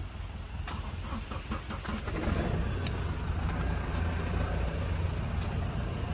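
Off-road 4x4 engine running slowly in low gear with a steady low rumble, with a few light knocks in the first two seconds.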